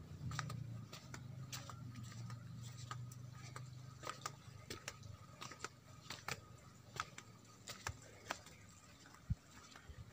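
Footsteps on a flagstone path and steps: a string of light, sharp clicks, about one to two a second, over a faint low hum that fades out by about halfway.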